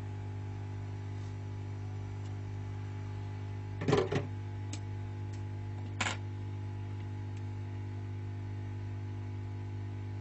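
Steady electrical hum from bench equipment, with a few small clicks and knocks; the loudest comes about four seconds in and a shorter one about six seconds in.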